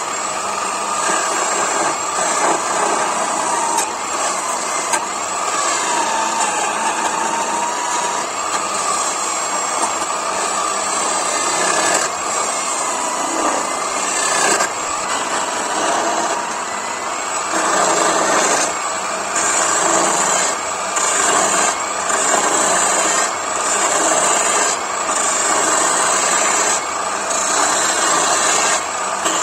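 Parkside PDM 600 wood lathe running while a hand-held turning chisel cuts a spinning wooden spindle. The steady motor noise sits under the scraping hiss of the cut, which surges and drops with each pass of the tool in the second half.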